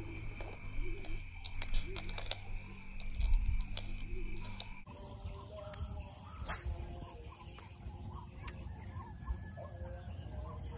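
Swamp ambience with many short animal calls. A dull low thump about three seconds in is the loudest sound. The sound changes abruptly a little under five seconds in.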